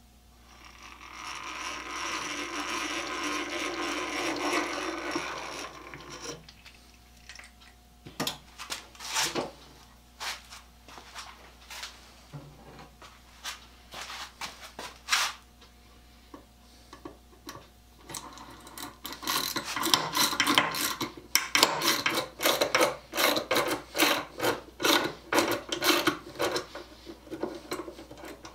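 A hand-cranked eggbeater drill turns steadily for about six seconds, its gears whirring as the bit bores a pilot hole into wood. A few scattered clicks follow. Then a Yankee spiral-ratchet push screwdriver is pumped in quick strokes, about two a second, driving a wood screw home.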